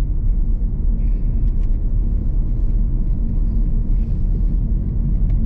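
Steady low rumble of a Mitsubishi Xpander Cross driving on a mountain road, heard inside the cabin: its 1.5-litre four-cylinder engine and tyre noise blend into an even drone.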